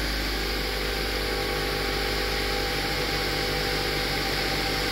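2002 Mazda Protege's 2.0-litre four-cylinder engine idling steadily, still warming up after a cold start.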